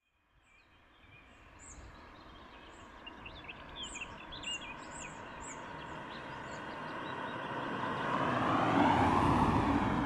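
Small birds chirping from the trees while a car approaches along the road. Its tyre and engine noise swells steadily and peaks as it passes close, about nine seconds in.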